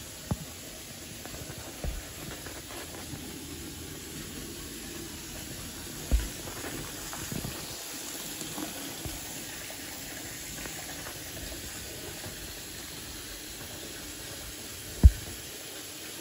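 Bathtub faucet running, water pouring steadily into a filling tub. A few short low thumps stand out, the loudest near the end.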